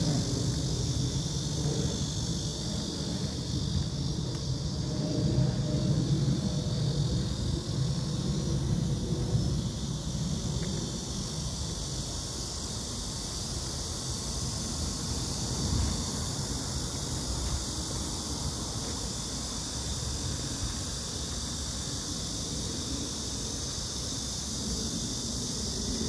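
Wind buffeting the phone's microphone as a gusty low rumble, heaviest in the first ten seconds and easing after, over a steady high buzz of insects in the grass.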